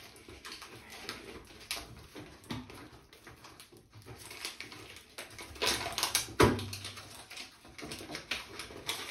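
Aluminium foil tape being pulled off the roll and pressed around a flexible foil duct on a bath-fan housing collar, with crinkling and crackling of the foil throughout and one solid thump against the fan housing about six and a half seconds in.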